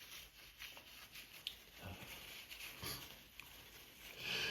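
Faint breathing and sniffling between allergy sneezes, with a louder drawn-in breath near the end as the next sneeze builds.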